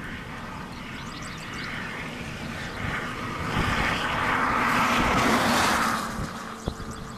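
A vehicle passing on the road: a hiss of tyre and engine noise swells to its loudest about five seconds in, then fades. Low wind rumble runs underneath.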